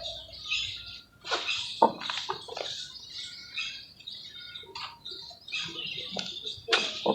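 Dry red mud being crumbled in water: a run of high crackling and fizzing, broken by a few sharp snaps.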